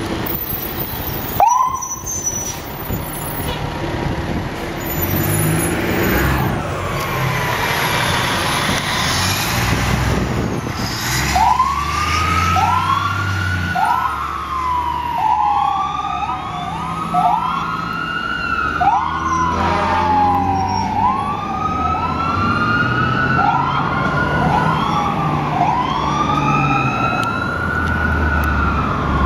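Vancouver fire trucks responding: the heavy rumble of the fire truck's engine as it pulls away, then from about twelve seconds in, siren wails that rise in pitch over and over, the sweeps overlapping as if more than one siren is sounding, over a low engine drone.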